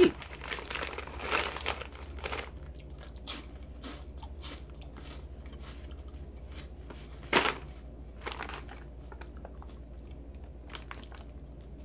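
A person chewing a crunchy baked rice snack close to the microphone: dense crunching in the first couple of seconds, then sparse single crunches, the loudest about seven seconds in.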